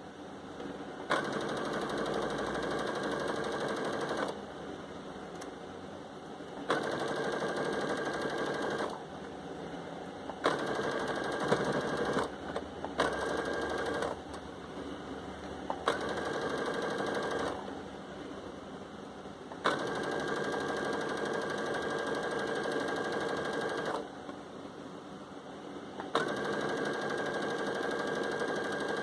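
Baby Lock Jubilant sewing machine stitching a double-folded hem. It runs in seven spurts of one to four seconds each, with short pauses between them while the fabric is repositioned.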